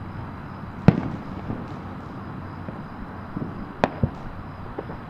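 Fireworks going off as sharp bangs over a steady background hum: one loud bang about a second in, then two quick bangs just before the 4 s mark and a few fainter pops.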